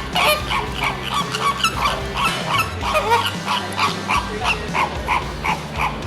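An animal's short, high calls repeating quickly, about three a second, over background music.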